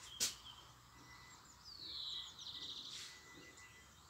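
A songbird sings one short phrase about halfway through, a sliding whistle running into a rapid trill, with fainter chirps from other birds around it. A single sharp click just after the start is the loudest sound.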